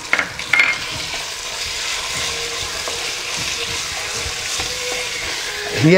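Steady frying sizzle from raw chicken strips and sautéed onion in butter in a nonstick pot, stirred with a wooden spatula, with a few scrapes in the first second; French fries are frying in a second pan.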